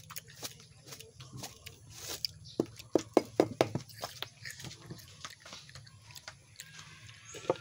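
Crisp crunching and chewing of raw jicama slices close to the microphone, with a run of louder knocks and rattles about three seconds in.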